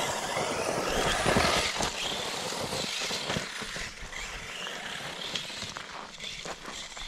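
Brushless electric RC car driving fast over loose volcanic ash and gravel: a motor whine rising and falling over the hiss of tyres spraying grit. It is loudest in the first couple of seconds, then gets somewhat quieter.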